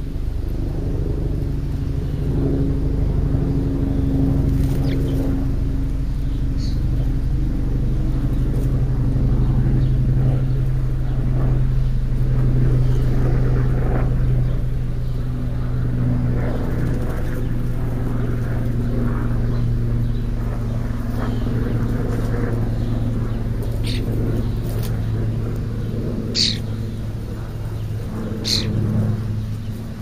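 A motor engine running steadily, a low even hum whose pitch drops slightly about halfway through. Two short high-pitched sounds stand out near the end.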